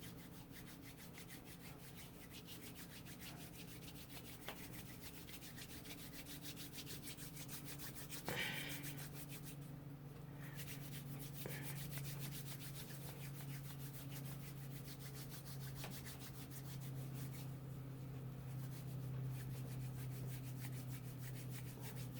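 Palms rolling a dreadlock between them: a faint, fast, steady rubbing of skin over hair, with a small knock about eight seconds in.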